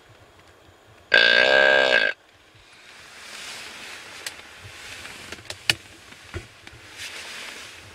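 A hand-blown deer call sounded once, a single burp-like call about a second long, imitating a male deer. It is followed by soft rustling and a few small clicks.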